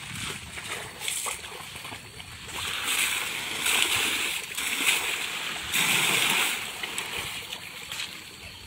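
Baby elephant splashing and sloshing water in a trough, with water spilling over the edge onto the ground. The splashing comes in irregular bursts, loudest around the middle.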